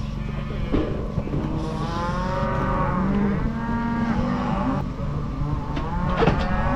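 Cattle bawling, several long calls overlapping, over a steady low hum, with a few sharp knocks.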